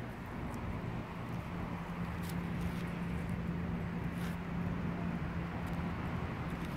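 Outdoor street ambience with a steady low hum that starts about a second in, and a few faint light clicks.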